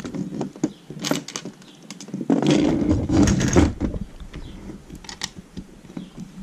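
Plastic Lego bricks clicking and clattering on a table as pieces are handled and pressed together, with a louder stretch of rattling about two and a half to four seconds in.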